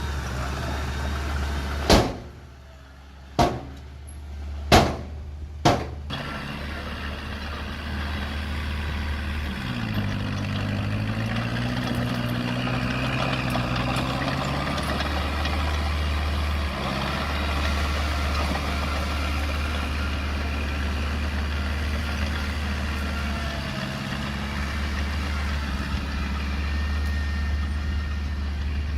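Engine of a small earthmoving machine running steadily, with four sharp knocks in the first six seconds and a change in the engine note about ten seconds in.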